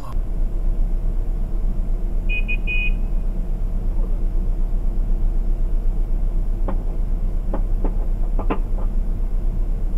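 Car engine idling with a steady low rumble inside the cabin. About two seconds in, three quick high-pitched horn beeps signal a car blocking the way to move off. A few light clicks come near the end.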